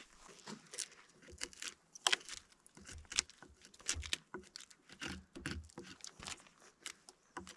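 Bark being pried, scraped and torn off a burl log with a small chisel: a run of irregular short scrapes, snaps and clicks.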